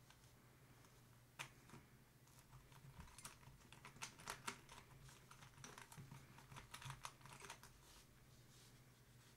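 Faint, irregular clicks of a plastic Curvy Dino twisty puzzle being turned by hand, starting about a second and a half in, thickest in the middle and stopping about two seconds before the end.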